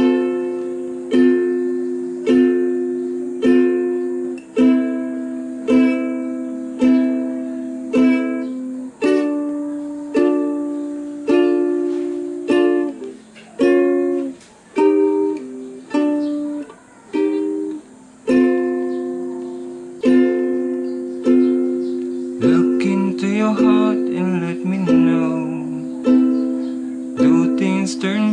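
Premier ukulele strummed through a repeating minor-key chord progression (F, A minor, D minor, B-flat minor, C minor, D minor, D-sharp, F), each chord struck and left ringing, about one strum a second.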